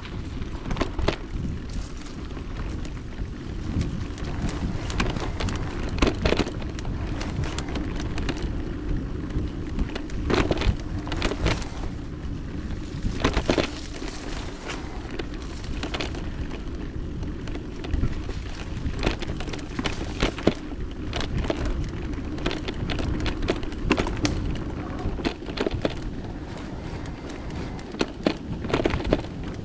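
E-mountain bike riding down a muddy, slippery forest trail: a continuous rumble of tyres and wind, with frequent knocks and rattles from the bike over bumps.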